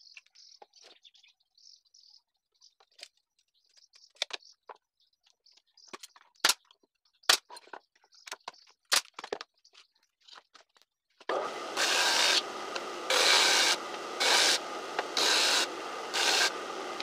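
A pneumatic brad nailer fires a few sharp shots into small wood pieces. About eleven seconds in, a small table saw starts running, growing louder five times as it cuts small blocks of wood.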